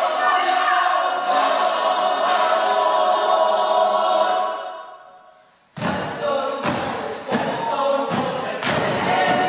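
Youth choir holding a sustained chord that fades away about four and a half seconds in. After a moment of near silence the choir comes back in abruptly and loudly, its singing punctuated by repeated thumps.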